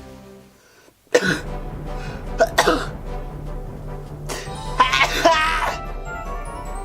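A man coughing and spluttering, with a tissue twisted up his nose to set off a sneeze that does not come. There is a sudden burst about a second in, more short bursts soon after, and a longer strained, wavering vocal sound near the end, over background music.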